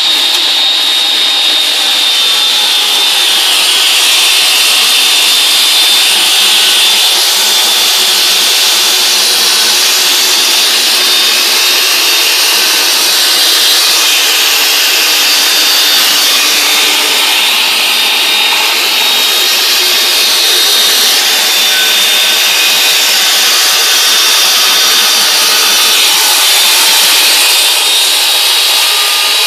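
Circular saw cutting lengthwise through a solid-core wooden door, a long, unbroken cut with a steady high whine over the noise of the blade in the wood.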